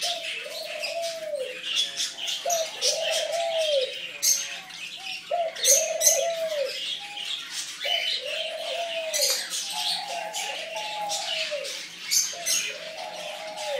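Caged birds chirping and twittering, over a low call that rises and falls, repeated about every second and a half.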